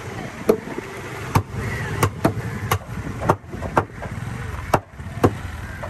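A series of sharp knocks, about eight at uneven intervals, over a steady low engine hum.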